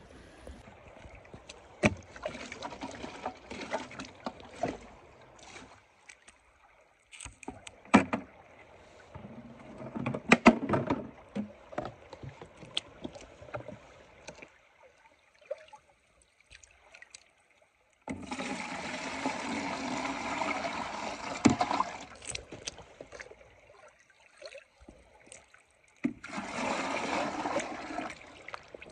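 White plastic buckets being rinsed in a shallow creek: water sloshing with scattered knocks of plastic, then two longer spells of splashing water about eighteen and twenty-six seconds in, each lasting a few seconds.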